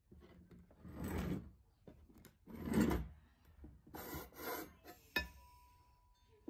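Flat steel bars scraping as they are slid and pushed across a wooden workbench, in several rubbing strokes. About five seconds in there is a sharp knock of metal that rings on briefly.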